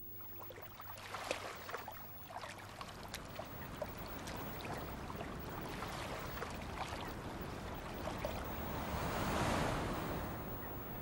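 Small waves lapping against stones at a lake's edge: a steady wash of water with many small splashes, swelling louder about nine seconds in.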